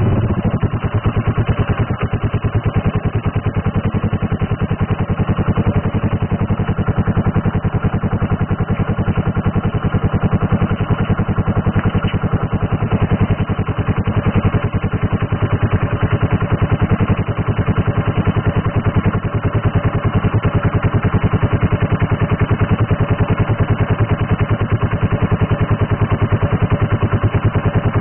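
Air-cooled single-cylinder four-stroke engine of a CPI XR 125 motorcycle, bored up to 150 cc, idling steadily through an aftermarket sport muffler.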